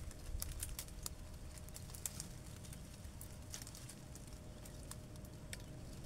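Leaves and thin twigs of a bush rustling and snapping as a hand works through the branches: scattered faint, sharp clicks.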